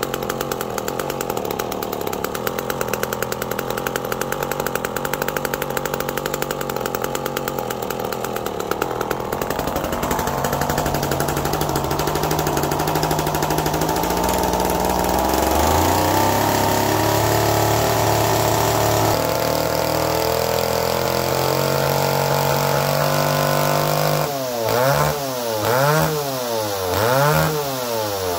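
McCulloch Pro Mac 1010 two-stroke chainsaw running on its freshly rebuilt carburetor: a steady run whose engine speed climbs partway through and holds higher, then three quick revs near the end.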